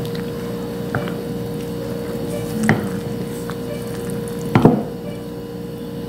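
Cold water poured into a bowl of cornmeal (fubá) and stirred into a wet paste with a spoon, with a few sharp knocks of the spoon against the bowl.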